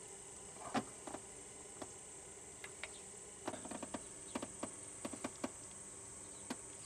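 Light metal clicks and taps as a sludge-coated roller lifter is worked up out of its bore in a 2003 Grand Am GT's V6 engine block: about a dozen small clicks, the sharpest about a second in and a quick cluster past the middle. A faint steady high-pitched hum runs underneath.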